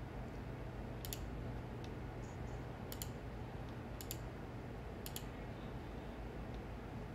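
Computer mouse clicking: four sharp double clicks, each a press and release, spaced about a second apart, with a few fainter ticks between, over a steady low hum.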